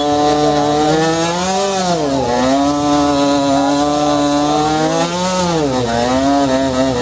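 Tuned two-stroke scooter engine held at high revs during a burnout, the rear tyre spinning on the tarmac. The revs sag and climb back twice, about two seconds in and again near the end.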